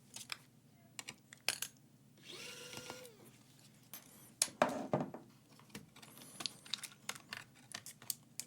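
Scattered small clicks and taps of laptop parts being handled as a motherboard is worked out of its case, with two louder knocks about five seconds in.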